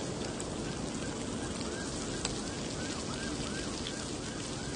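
Pork belly and mushrooms sizzling on a hot grill pan: a steady crackling hiss, with a single sharp click about two seconds in.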